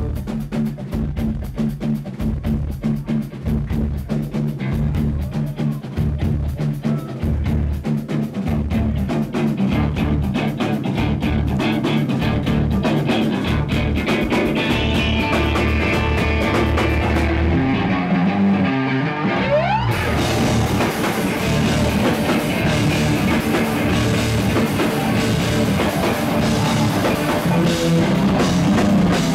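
Live instrumental rock band, with electric guitar and drum kit, playing a loud, driving riff. About eighteen seconds in, the drums drop out under a steeply rising pitch sweep. The full band crashes back in harder about two seconds later.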